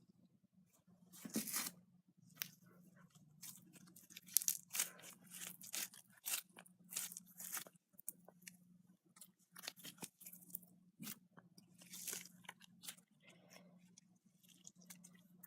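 Slime being squeezed and stretched by hand, giving off irregular crackling and popping clicks in bursts, over a faint steady low hum.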